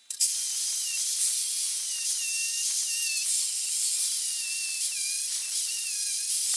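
Steady high hiss of a pressurised spray or gas jet, starting suddenly just after the start, with a faint wavering whistle riding on top.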